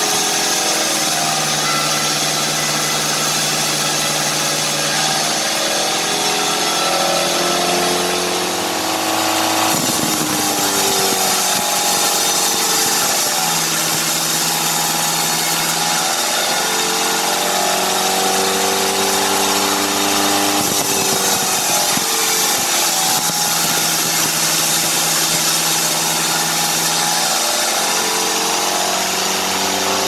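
A homemade band sawmill running at full speed, its band blade ripping lengthwise through a sengon (albizia) log to cut boards. The sound is a steady, loud sawing noise over a machine hum whose pitch drifts up and down.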